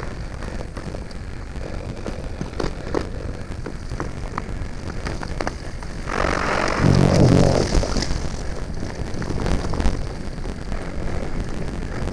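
Mountain bike rolling down a rocky, leaf-strewn trail, heard from a handlebar-mounted action camera: a steady rumble of tyres and frame with many sharp clicks and rattles. A louder rush of noise comes about six seconds in and lasts about two seconds.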